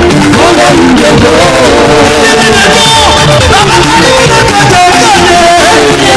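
Loud live gospel worship music: singing over a full band, with no break.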